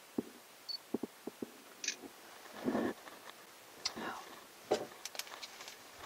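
Light clicks and knocks from gloved hands handling a small digital camera and tools, with a short high beep about a second in.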